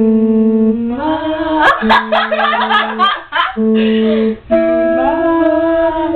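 Vocal warm-up: long held hummed and sung notes at a steady pitch, broken in the middle by a busier stretch of sliding, shifting notes.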